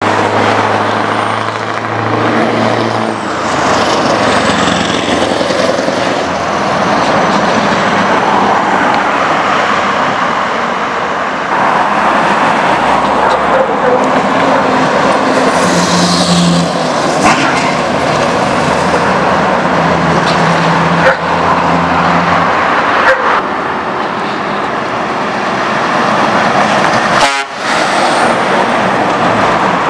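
Scania V8 truck engines with loud Tsagas aftermarket exhausts running and driving past, a steady loud exhaust note in several back-to-back clips that change abruptly where they are cut together.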